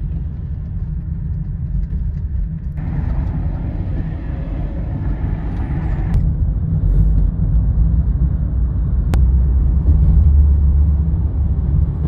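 Road and engine rumble inside a moving Honda Pilot's cabin, growing louder as the car picks up speed. For about three seconds in the middle a rush of higher-pitched noise joins the rumble.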